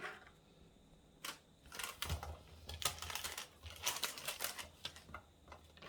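Kitchen prep clatter: a run of quick, irregular light clicks and taps starting about a second in, with a faint low hum underneath from about two seconds in.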